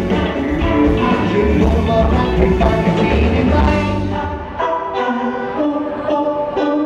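Live pop-rock band playing with male singing, electric guitar and bass; about four seconds in the low end drops away and the music thins out.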